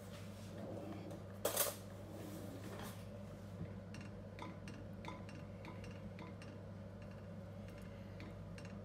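Wooden spatula stirring thick rice porridge in a non-stick pan, scraping and tapping against the pan with small scattered clicks and one louder scrape about one and a half seconds in, over a steady low hum.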